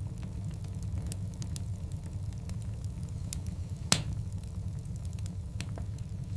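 Log fire burning with a steady low rumble and scattered crackles, and one loud, sharp pop about four seconds in.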